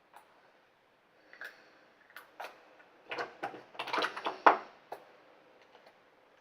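Makeup cases and tools being handled: a run of small clicks and clatters of hard plastic, densest and loudest in the middle, then stopping.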